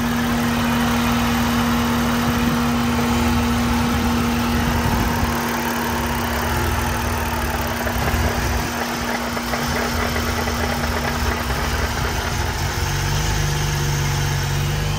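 Car engine idling with a steady hum and an uneven low rumble that wavers partway through. It is running rough after a new fuel pump and filter, which the owner suspects could be a vacuum leak or the tune.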